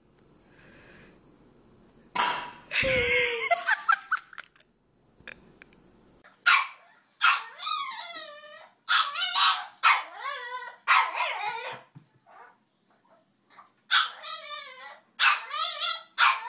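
A small dog barking in a run of short, wavering barks, roughly one a second, through the second half. They are preceded by a loud, harsh sound of about two seconds near the start.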